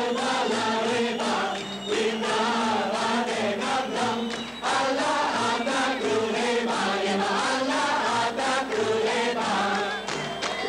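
A mixed choir of young men and women singing a chant-like song, with steady rhythmic hand clapping on the beat.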